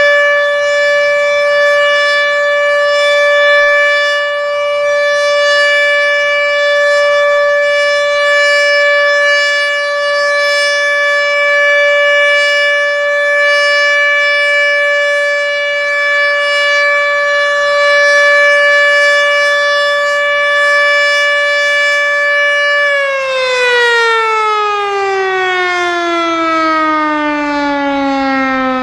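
ASC OM-120 electromechanical outdoor warning siren sounding the steady Alert tone. About 23 seconds in, its pitch starts falling smoothly as the siren winds down at the end of the signal.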